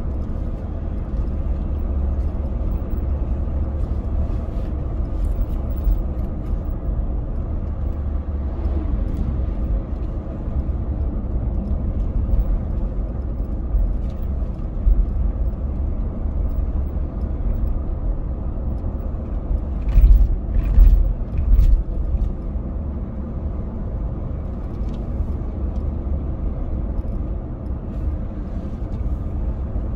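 Car driving on a road, heard from inside the cabin: a steady low rumble of tyre and engine noise. A short run of louder thumps comes about two-thirds of the way through.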